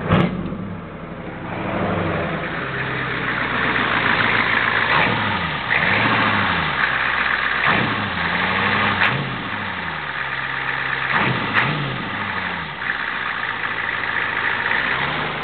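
Ford IDI V8 diesel engine running, revved up and back down to idle several times, with a few sharp clicks.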